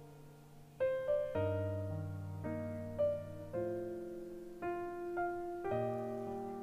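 Background piano music: chords and single notes struck one after another and left to ring and fade.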